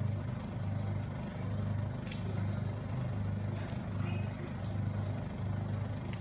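Steady low hum that swells and fades slightly in loudness, with a few faint taps and leaf crinkles as marinated sardines are laid on a banana leaf.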